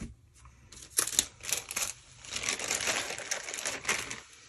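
Crinkling and rustling of product packaging being handled: a short sharp rustle about a second in, then a longer stretch of crinkling.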